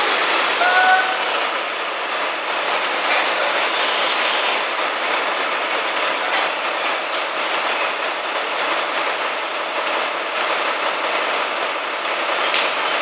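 Truck-mounted knuckle-boom crane running during a lift: a steady, even mechanical noise from the truck's engine and crane hydraulics. Two short rising chirps sound right at the start.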